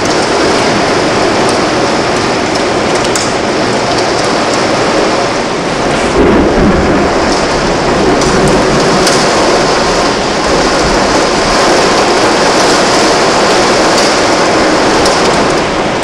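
Hail and heavy rain pounding on the window and roof: a loud, steady roar of noise dotted with sharp ticks of hailstones striking. A deeper rumble joins about six seconds in.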